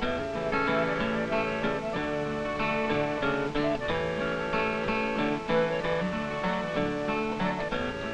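Soundtrack music on guitar: a busy run of quick plucked notes.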